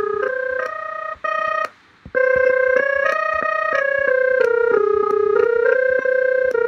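Simple software synthesizer built with Blender's Audio Nodes add-on, played live from an iPad MIDI keyboard: a wandering melody of held single notes, one after another. A short break comes about two seconds in, and most note changes start with a small click.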